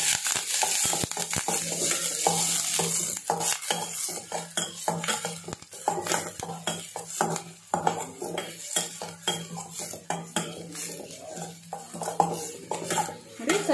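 A metal spatula scraping and clinking against a stainless steel kadai as onions, garlic and curry leaves are stirred and fried in hot oil, with a sizzle underneath. The sizzle is strongest early on.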